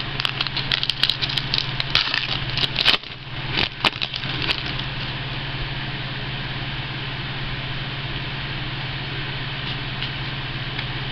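Football trading cards being flipped through and shuffled by hand: a quick run of clicks and rustles over the first four and a half seconds or so. Then only a steady low hum remains.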